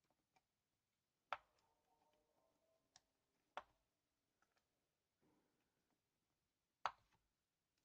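Small flush cutters snipping the tall legs of LEDs soldered into a keyboard circuit board: three sharp snips, about a second in, near the middle and near the end, with a faint ringing after the first.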